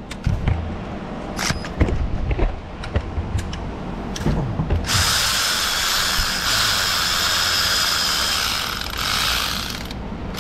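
Scattered clicks and clinks of tools, then about five seconds in a power tool runs steadily for about five seconds with a high whine, spinning out the last bolt of the engine's front cover.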